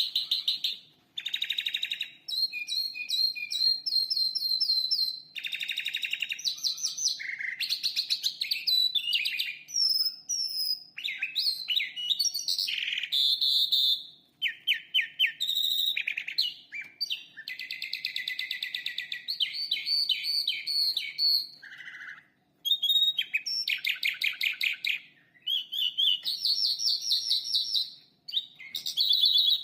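Calandra lark singing a long, varied song: fast trills and rapid runs of repeated high notes in changing phrases, broken by a few short pauses.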